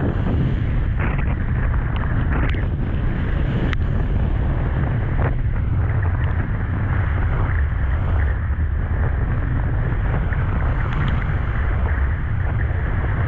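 Strong wind buffeting the microphone as a steady low rumble, over waves breaking and washing on shoreline rocks in stormy surf.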